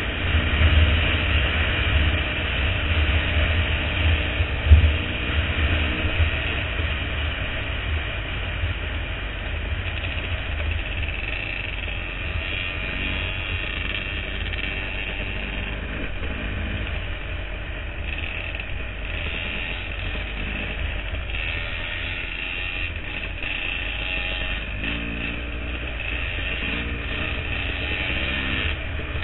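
Dirt bike engine running under way, heard from a camera on the bike, with heavy wind rumble on the microphone. The engine note comes and goes with the throttle, strongest in the first six seconds, and a sharp knock sounds about five seconds in.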